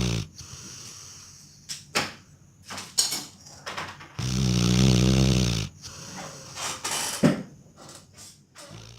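Labrador retriever snoring in its sleep: a long, low snore lasting about a second and a half, about four seconds in, with softer breathing and small clicks around it and a brief sharp sound near the end.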